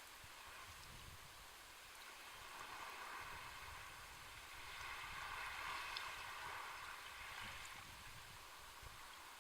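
Sea waves washing in on the shore: a faint, steady hiss of water that swells about halfway through and then fades again.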